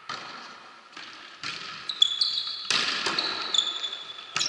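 Volleyball being struck several times during a rally, the hits echoing in a sports hall. Short high squeaks, most likely shoes on the court floor, come in the second half.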